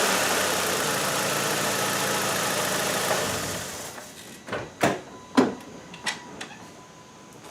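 Car engine running down from a rev and dying away about three and a half seconds in, followed by a few sharp knocks. The owner is chasing a clunk under engine load that he suspects comes from a motor mount.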